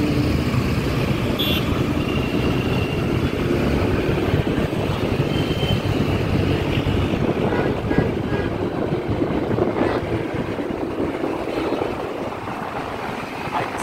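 Motorbike riding through city traffic, heard from the pillion seat: steady engine and road noise with wind rushing over the microphone.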